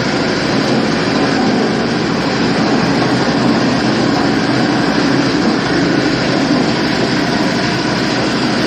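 Areca nut splitting machine driven by a 12 HP diesel engine, running with a loud, steady mechanical noise.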